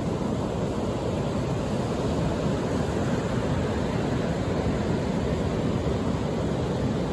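Rough ocean surf breaking and washing up a sandy beach: a steady, even wash of noise, heaviest in the low end, with no single wave standing out.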